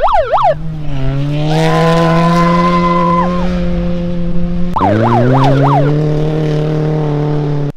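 Rally car engine at high revs: a quick run of throttle blips, then revs held steady for about four seconds, another run of blips about five seconds in, then steady high revs again until the sound cuts off suddenly.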